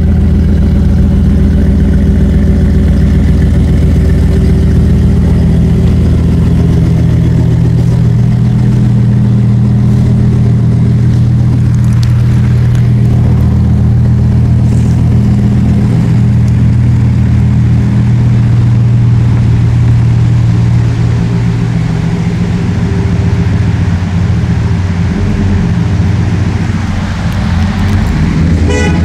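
Pickup truck engine running as the truck drives off, a steady hum that thins out and drops a little about two-thirds of the way through.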